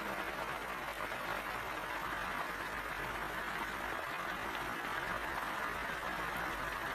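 Steady, even hiss with a constant low rumble beneath it, unchanging throughout; no distinct calls or other separate sounds.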